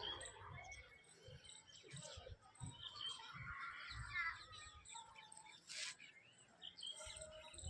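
Faint, scattered high-pitched chirps and calls, with faint voices in the background and a single sharp click near the end.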